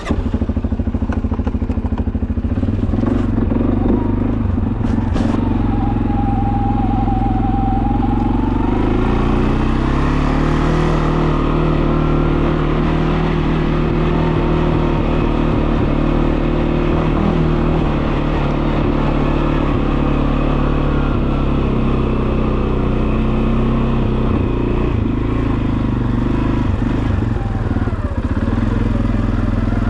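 Four-wheeler (ATV) engine running steadily under load while ridden fast. Its pitch steps up about 9 to 10 seconds in, as with a change of speed or gear.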